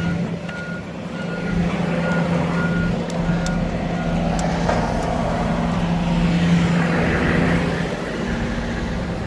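A heavy vehicle's backup alarm beeping about twice a second over a running engine; the beeping fades after about four seconds while the engine keeps going.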